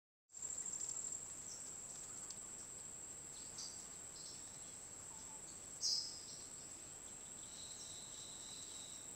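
Rainforest ambience: a steady, high-pitched insect drone with a few short bird chirps, the loudest about six seconds in. A second, lower steady tone joins near the end.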